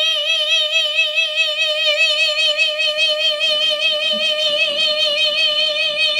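A man singing one long, high held note into a karaoke microphone, amplified through its speaker. The note holds steady at first, then takes on a widening vibrato.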